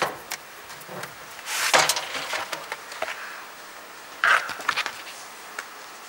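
Handling sounds of a folder being taken from a metal locker and opened: light clicks, a loud rustle about a second and a half in, and another cluster of rustles and clicks around four seconds in.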